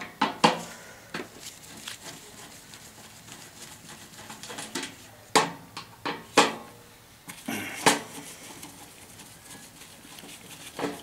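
Mounting screws and hand tools clicking and clinking against the sheet-metal blower housing and motor mount as the blower motor's mounting screws are taken out. About five sharp clinks, scattered over several seconds, with soft handling noise between.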